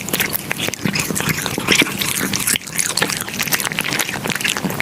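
A cat eating close to the microphone: a dense, irregular run of small wet clicks and smacks from its chewing and licking.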